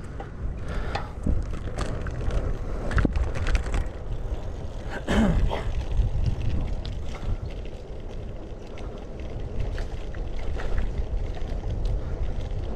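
Wind buffeting the microphone over the tyre and road noise of a road bicycle being ridden, with scattered clicks and rattles. A brief louder sound with a bending pitch comes about five seconds in.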